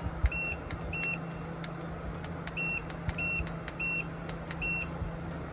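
A water-cooled DC air conditioner's indoor unit giving short, high electronic beeps, six in all at uneven spacing. Each beep acknowledges a button press on its remote as the settings are changed. A low steady hum runs underneath.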